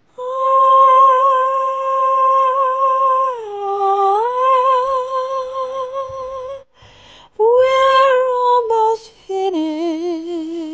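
A woman singing long, high held notes with vibrato in three phrases; the pitch dips and comes back in the first phrase, and the last phrase is lower.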